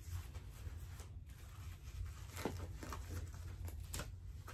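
Soft rustling and crinkling of a disposable dog diaper being fitted, with a few short scratchy sounds as its tabs are handled and fastened, over a low steady hum.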